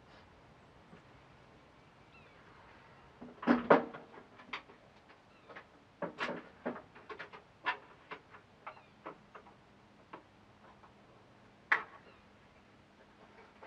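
Scattered metallic clinks and knocks of hand tools and parts being worked loose and handled at a truck's front end, with a loud cluster a few seconds in and one sharp knock near the end.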